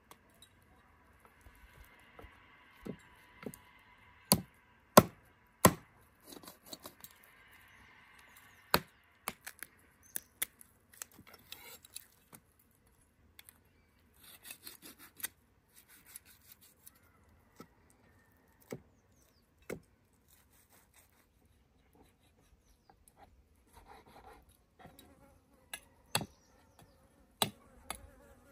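Kitchen knife cutting raw meat on a wooden cutting board: irregular sharp knocks of the blade against the board, the loudest a few seconds in, with a lull past the middle. A faint insect buzz hangs over the first several seconds.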